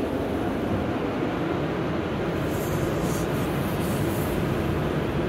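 Automatic tunnel car wash heard from inside the car: water spraying onto the windshield and body over a steady rumble of the wash equipment. The spray turns hissier for a couple of seconds in the middle.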